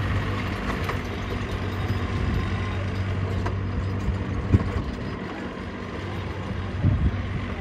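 Steady low engine hum that slowly fades, with a single sharp knock about four and a half seconds in.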